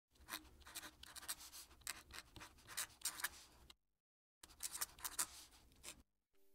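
Fountain pen nib scratching across paper while writing a cursive signature: quick uneven strokes, faint, with a break of under a second partway through.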